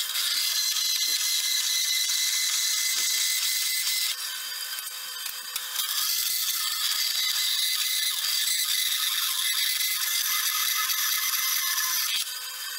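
Vertical metal-cutting bandsaw cutting through a mild steel knife guard blank, the blade grinding through the steel with a steady motor hum beneath. The cutting noise eases for a couple of seconds about four seconds in and drops off near the end as the cut finishes.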